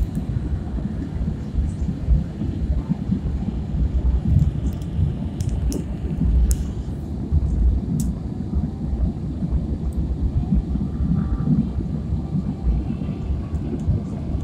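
Airliner cabin noise in flight: a steady low rumble of engines and rushing air heard from a window seat, with a few faint clicks.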